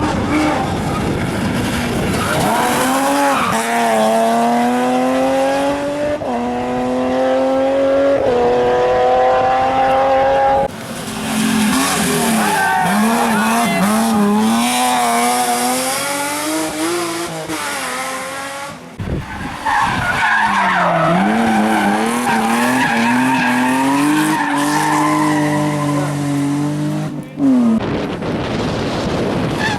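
Turbocharged four-cylinder rally car engine under hard acceleration, its revs rising and snapping down at each upshift, about every two seconds early on, then rising and falling through braking and cornering. Tyres squeal at times on the stage.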